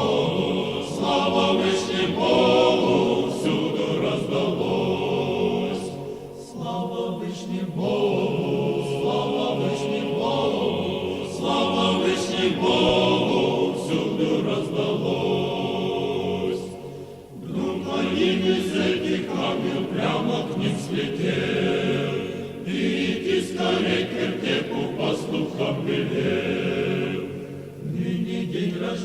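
A choir singing Orthodox church chant without instruments, in sustained phrases broken by short pauses for breath about every ten seconds.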